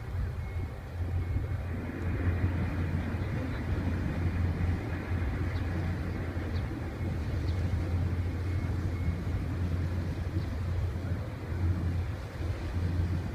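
Low, steady rumble of the cruise ship Concerto's engines as it manoeuvres away from the quay.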